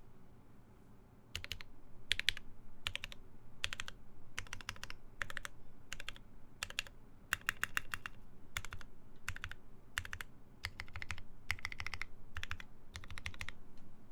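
Typing on a Geonworks F1-8X mechanical keyboard with lubed Gateron Ink switches, a full aluminium plate and Hammerworks CRP keycaps. Quick runs of keystrokes come in short bursts with brief pauses between them, starting about a second in.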